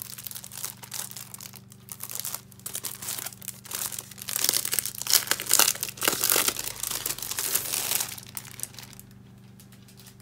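Clear plastic wrapping crinkling and crackling as hands pull it off a magazine. The crinkling is heaviest and loudest in the middle and dies down near the end.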